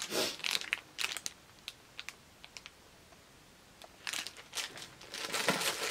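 Thin clear plastic bags around sunglasses crinkling as they are handled, in short crackly bursts over the first second or so and again from about four seconds in, with a few light ticks and a brief lull between.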